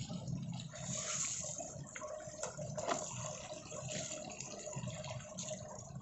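Water running from a garden hose and splashing on wet paving, with a few faint knocks.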